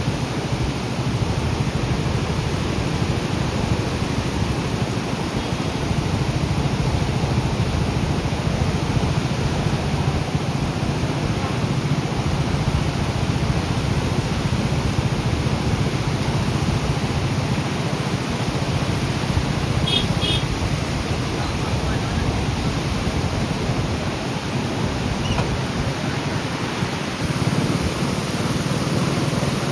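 Fast-flowing floodwater rushing steadily, a constant even noise of moving water.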